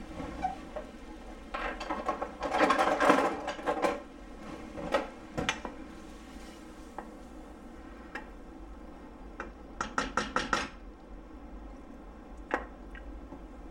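Wooden spoon stirring salsa in a metal pot, scraping and knocking against the pot's sides, with a quick run of five or six taps about ten seconds in.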